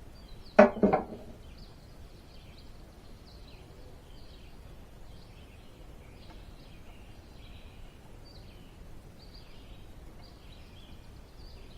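Birds chirping faintly in the background, with one short loud sound about half a second in.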